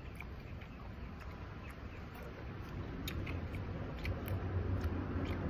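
Soft jelly being scraped and scooped out of a cut-open green jelly coconut: small scattered scrapes and wet clicks, over a low steady rumble that grows a little louder in the second half.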